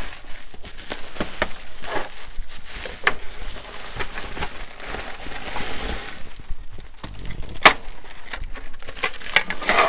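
Bubble wrap and clear plastic packaging crinkling and rustling as a wrapped pack is handled and moved, with scattered crackles and clicks; one sharp click, the loudest sound, a little past the middle.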